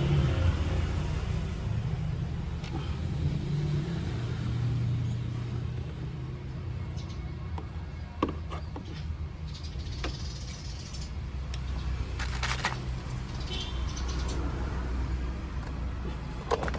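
A steady low vehicle-engine rumble runs throughout, with a few short clicks and rustles of plastic parts being handled as the scooter's air filter is worked out of its housing.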